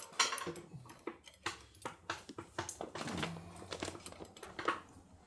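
Hand tools and small metal bolts and hardware clinking and tapping against each other and the motorcycle's parts, in irregular light clicks.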